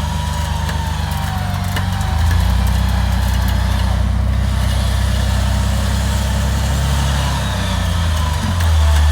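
An off-road Jeep's engine is running under load in deep mud. It gets louder and steps up about two seconds in, then shifts again near the end.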